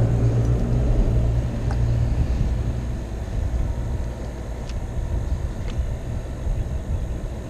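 Low, steady rumble of traffic crossing the concrete bridge overhead, heaviest for the first couple of seconds and then easing a little. A few faint clicks are heard over it.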